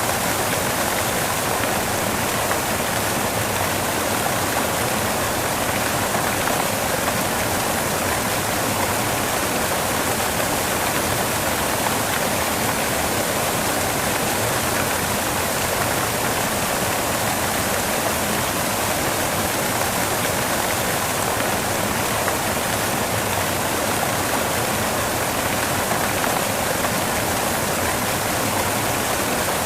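Steady white noise: an even, unchanging hiss, strong in the middle and high range with little low rumble.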